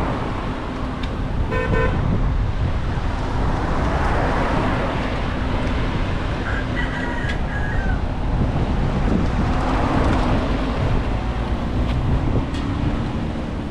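Vehicle engines and road traffic running steadily, with a short car horn toot just under two seconds in and a second, higher tone around seven seconds.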